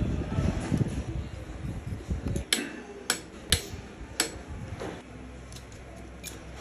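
Handling noise on the engine block, then a ratchet wrench clicking in sharp single ticks, about two a second, as a connecting-rod cap bolt on the crankshaft is run down.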